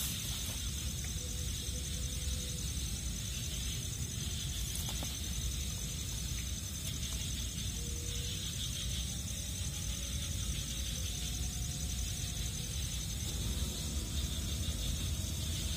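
Steady high-pitched trilling of an insect chorus over a low, steady rumble.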